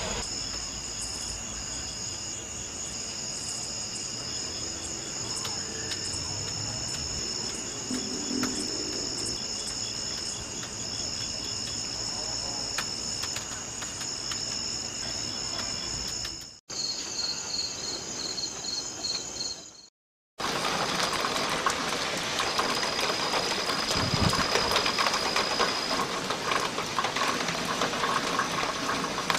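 Crickets and other night insects chirping steadily, several high-pitched trills overlapping. The sound breaks off briefly twice, the second time about twenty seconds in, and afterwards the chirping goes on over a louder hiss.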